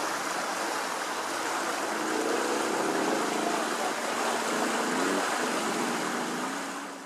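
Fast-flowing Mura River in flood, its high water rushing and swirling past a moored pontoon in a steady rush; fades out near the end.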